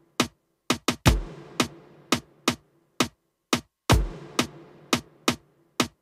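Sampled drum-kit sounds played live from an electronic drum pad and triggered through the Sitala sampler: a groove of sharp single strokes, with a heavy low hit and a long ringing tail about every three seconds.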